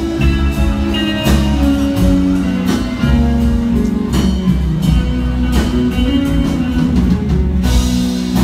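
Band music playing loud, with a heavy bass line, guitar and drum hits.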